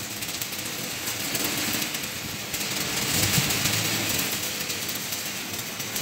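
Electric arc welding on the steel shell of a concrete mixer drum: a steady crackling hiss from the arc, full of fine rapid ticks.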